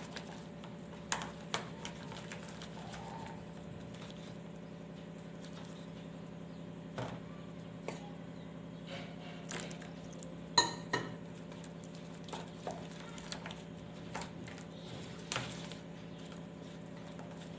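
Spatula stirring and scraping thick cake batter in a mixing bowl, with scattered light taps and knocks and one sharper clack about ten seconds in, over a steady low hum.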